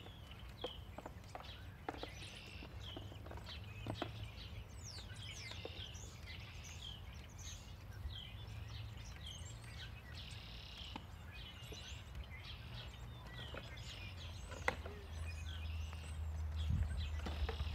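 Small birds chirping repeatedly, with short high calls throughout, over a low steady outdoor rumble that grows louder near the end. A few faint sharp knocks sound, one clearer about three-quarters of the way through.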